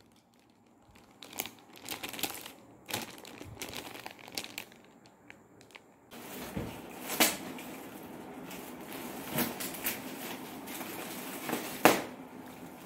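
Plastic gift packaging and foil wrapping crinkling and crackling as it is handled, in irregular crackles. It is sparse at first and busier from about six seconds in, with a sharp loud crackle near the end.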